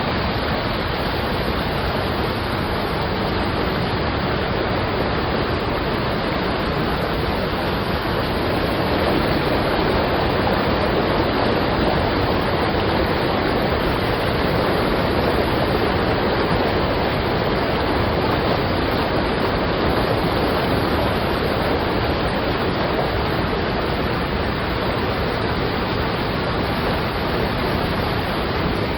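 Waterfall: water falling and rushing in a steady, loud, unbroken roar.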